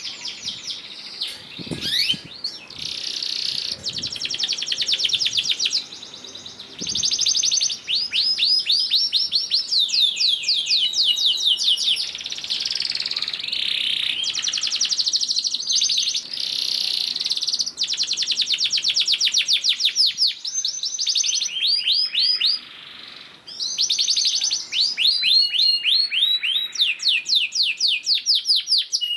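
Male domestic canary singing full, vigorous song. The song is long runs of rapid trills: each phrase is a fast roll of the same note repeated many times a second, and one roll gives way to the next every second or two with hardly a pause.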